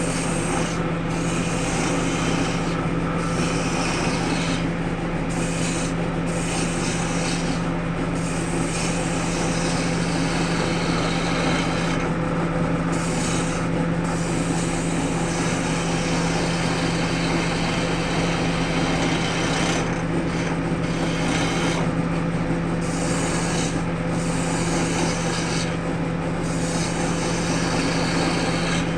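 Wood lathe running with a steady motor hum while the spinning wood is worked, a rubbing scrape against the wood that breaks off briefly every second or two.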